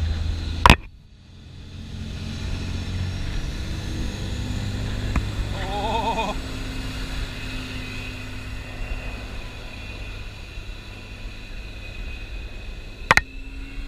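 Motorboat engine running steadily. A sharp click comes about a second in and another near the end, and there is a brief wavering cry about six seconds in.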